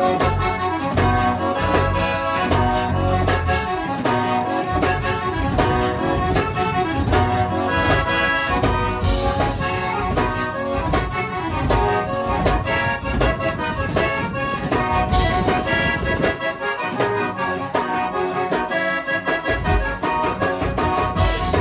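Live zydeco band playing a dance number: accordion lead over electric bass and drum kit, with a steady beat. The bass drops out for a few seconds about three-quarters of the way through.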